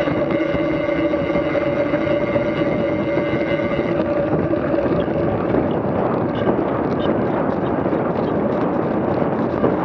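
An engine running at a steady pitch over a rushing noise; about four seconds in, the engine's hum fades and the rushing noise carries on.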